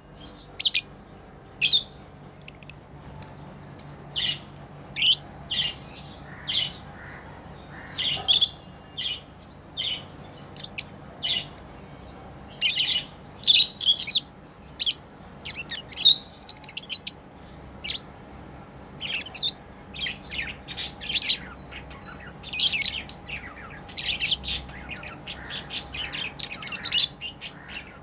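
Pet lovebirds chirping: a steady stream of short, high chirps in quick, irregular succession, sometimes several close together.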